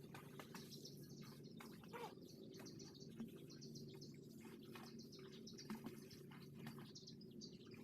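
Faint, scattered bird chirps over a low steady hum, close to silence.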